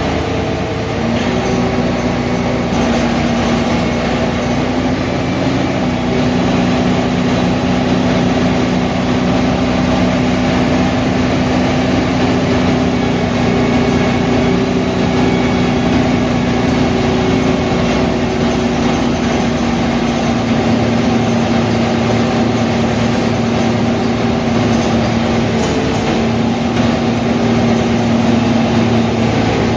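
Mercedes-Benz O345 Türk city bus's diesel engine running steadily, a constant hum with only slight shifts in pitch.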